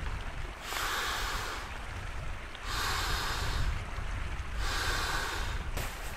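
A person blowing hard by mouth into the valve of an inflatable sleeping mat: three long breaths of about a second each, with short pauses between. A low wind rumble on the microphone runs underneath.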